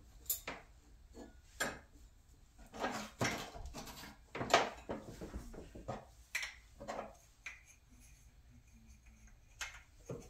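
Metal forks clinking and clattering in a sideboard drawer as they are picked out, in irregular knocks with the loudest clatter about four and a half seconds in and a quieter spell shortly before the end.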